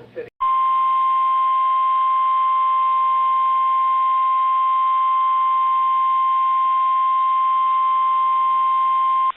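NOAA Weather Radio warning alarm tone, the 1050 Hz tone. A single steady high tone starts a moment in and holds for about nine seconds before cutting off abruptly. It is sounded as a routine weekly test of the alarm system that switches weather radio receivers on.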